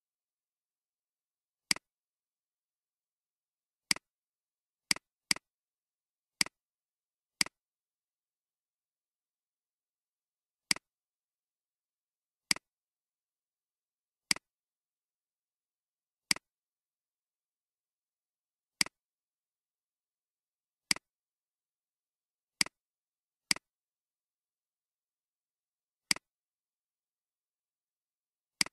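Computer mouse clicks, single sharp clicks about sixteen times at uneven gaps of roughly one to three seconds, with dead silence between them.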